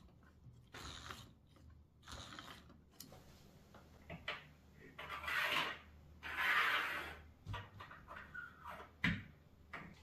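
Hands handling a 3D-printed plastic RC car chassis and wheel: irregular plastic clicks, rattles and scraping. The longest and loudest stretch comes about five to seven seconds in, followed by a couple of sharp knocks near the end.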